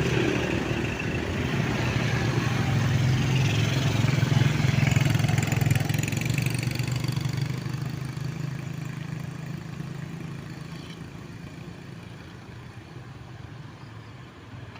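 Heavy earthmoving machine's diesel engine running steadily, loudest about four seconds in and then fading away over the last several seconds.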